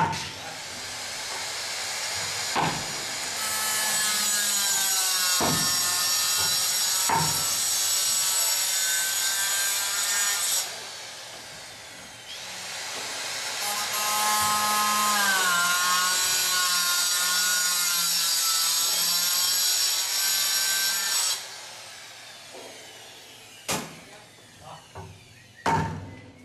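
Hand-held power tool cutting into a prefab wall panel, in two long runs of about ten and nine seconds with a short stop between. Its pitch dips partway through the second run, and a few sharp knocks follow near the end.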